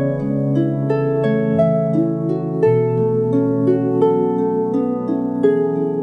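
Ancient Greek lyre music: plucked strings playing a flowing melody of a few notes a second over sustained low notes that shift every few seconds.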